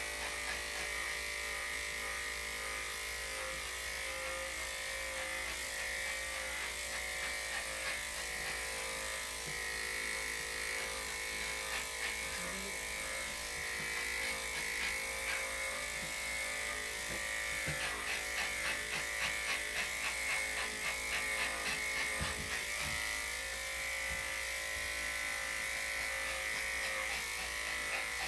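Electric dog grooming clippers with a #5 blade running steadily as they shave through a dog's thick, slightly matted coat. For a few seconds past the middle, the hum breaks into a rapid ticking pulse.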